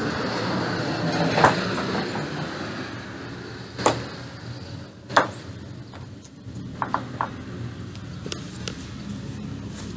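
A handful of separate knocks and scrapes from hands working among edging stones and soil in a garden bed, over a low steady background.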